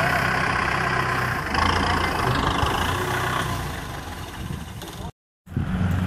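Kubota M6040SU tractor's diesel engine running steadily up close, fading over the last couple of seconds and cutting out for a moment; wind rumbles on the microphone just before the end.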